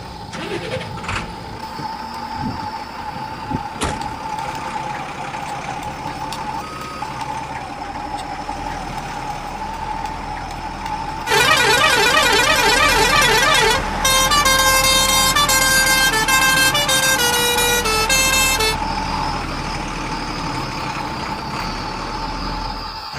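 RC toy dump truck's electric drive motor whining steadily as it drives. About halfway through, a louder electronic effect sounds for about seven seconds: a fast warbling siren-like tone, then a run of stepped beeping notes, before the motor whine carries on alone.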